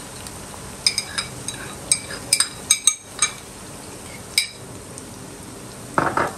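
Onions frying in oil with a steady sizzle. Over it comes a series of about ten sharp, ringing clinks as a spoon knocks and scrapes against a small white bowl, emptying ginger-garlic paste into the pan. Near the end there is a short, louder scrape in the pan.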